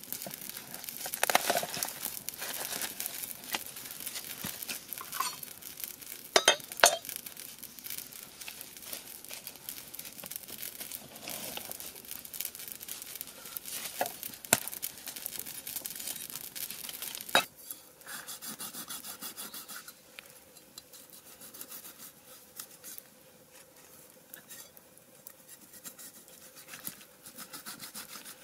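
A knife and raw fish handled on a wooden chopping board: scattered clicks, scrapes and a few sharp knocks of the blade on the board, quieter in the last third.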